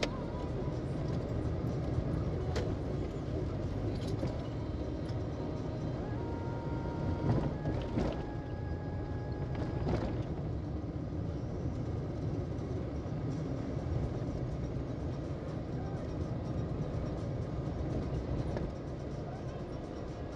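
A car driving: steady engine and road rumble, with a few brief knocks.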